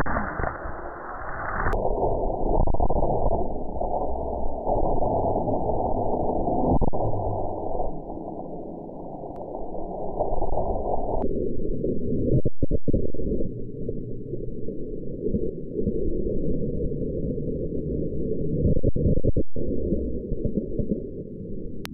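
A K'Nex rollercoaster car rattling along its plastic track, heard from an onboard camera. The audio is slowed right down, so the rattle becomes a deep, muffled rumble. It drops lower in pitch in steps, about two seconds in and again about eleven seconds in, as the slow motion gets slower.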